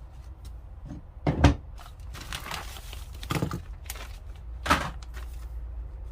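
Items being handled and set down on a work surface: a few dull knocks and thunks, the loudest about a second and a half in, with rustling of packaging between them.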